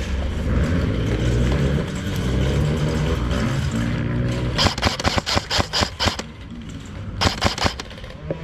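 Airsoft gun firing a quick string of sharp shots about halfway through, then a shorter burst near the end, over a steady low rumble.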